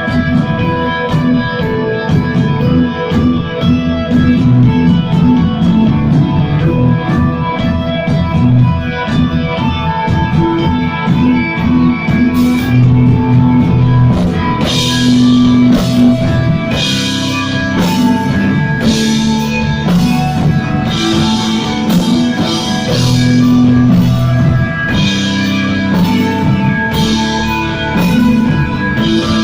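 Instrumental rock music: electric guitar melody over a steady drum beat, with the cymbals coming in stronger about halfway through.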